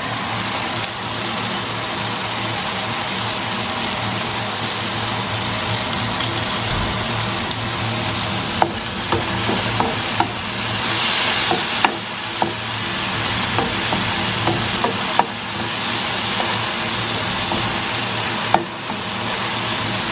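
Quartered tomatoes sizzling in hot oil in a frying pan, a steady hiss. From about halfway through, sharp clicks and knocks come as a wooden spatula stirs them against the pan.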